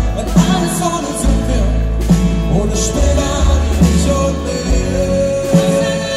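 Live unplugged pop band playing: upright double bass, piano and drum kit with cymbals, with voices singing over them.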